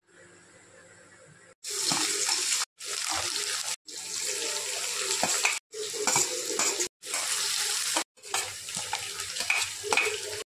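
Chopped garlic, onion and green capsicum sizzling in hot oil in a kadai, with a steel spoon scraping and clicking against the plate as the vegetables are pushed in. After a quiet start, the sizzling stops and restarts abruptly several times.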